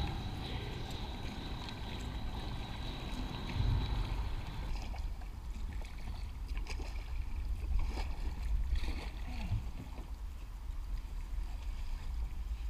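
Kayak on a river: water lapping and splashing around the hull with paddle strokes, over a steady low rumble picked up by the boat-mounted camera, and a few light knocks in the second half.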